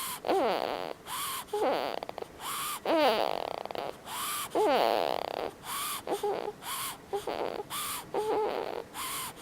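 Snoring with whistling notes that rise and fall in pitch, short breath sounds repeating about twice a second.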